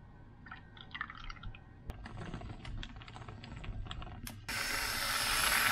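Hot chocolate poured from a stainless saucepan into a ceramic mug, then a plastic bag crinkling and mini marshmallows dropping in with light ticks. About four and a half seconds in, a loud steady hiss starts abruptly: an aerosol can of whipped cream spraying.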